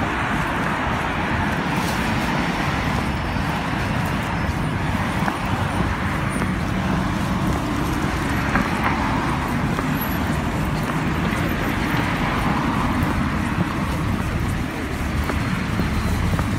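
Steady road traffic noise, with passing vehicles swelling and fading every few seconds.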